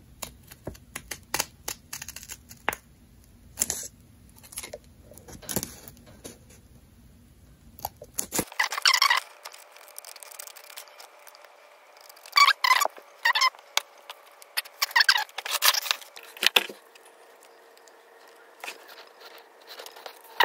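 Scissors cutting through folded printer paper: many short, sharp snips, then a few longer bursts of cutting and crisp paper rustle in the second half.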